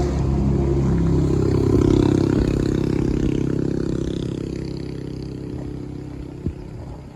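A motor vehicle's engine passing by, growing louder to about two seconds in and then slowly fading away. A short sharp click near the end.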